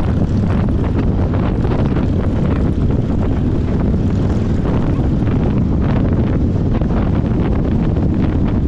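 Loud, steady wind buffeting on the microphone, with a vehicle's running noise underneath.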